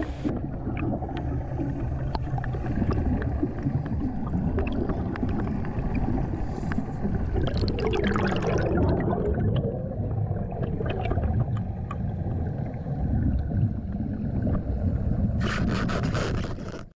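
Underwater ambience: a steady low rumble with scattered ticks, and a rush of exhaled air bubbles about eight seconds in. A few sharp clicks come near the end.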